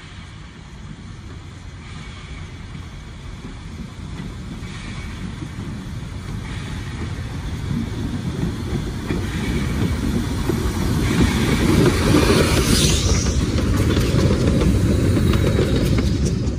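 Narrow-gauge steam locomotive approaching and running past, its rumble growing louder and loudest from about twelve seconds in, with a burst of steam hiss as it passes.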